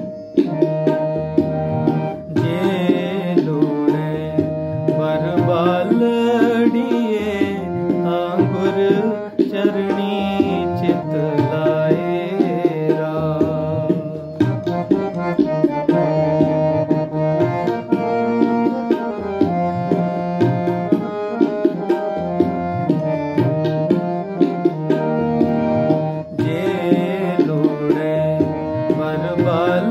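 Harmonium playing a devotional shabad melody in D# with tabla accompaniment keeping dadra taal, a steady stream of drum strokes under the held reed notes.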